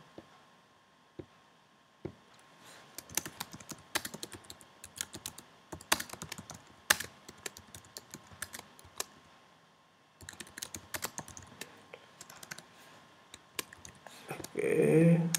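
Typing on a computer keyboard: two runs of quick key clicks with a short pause between them.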